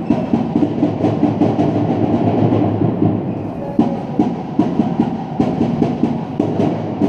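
Loud sports-hall din during a handball game: a continuous echoing rumble with short knocks about two or three times a second, from the ball bouncing and players' feet on the court.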